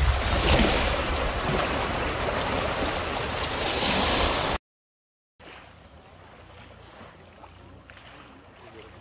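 Small waves washing over a rocky, pebbly shoreline with wind buffeting the microphone. About halfway through it cuts off abruptly, and after a short silence a much fainter sea and wind hiss follows.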